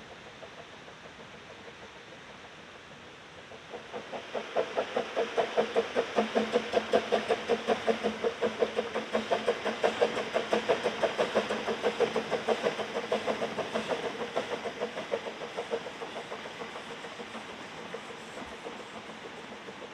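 Narrow-gauge steam locomotive chuffing past with its train: rapid, even exhaust beats come in about four seconds in, are loudest over the middle and slowly fade away, over the steady rush of a fast-flowing river.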